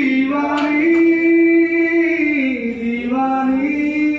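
A woman's voice singing a song in long held notes that glide slowly up and down.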